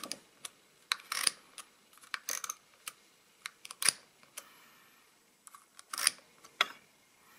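A 1912 Golden Gem chain adding machine worked with a Bakelite stylus. The stylus is set into the metal chain and pulled down, giving a dozen or so sharp, irregularly spaced clicks and short rattles.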